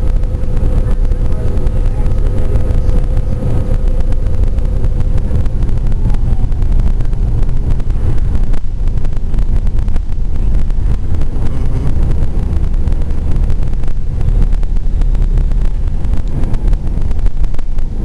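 Interior of a Gillig transit bus under way: a steady, loud low drone of engine and road rumble with light rattles. A steady whine fades out about five seconds in and comes back near the end.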